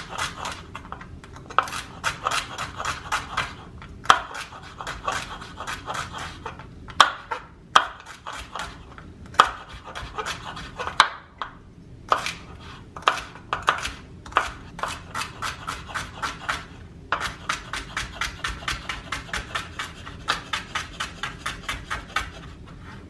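Chef's knife chopping celery on a wooden cutting board: runs of crisp knocks, about three or four a second, with short pauses between runs.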